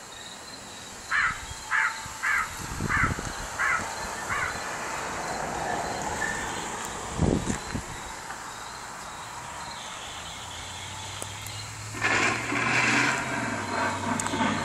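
Six short, harsh crow-like caws, about two a second, starting about a second in. Near the end a louder, steady rumbling noise with a low hum begins.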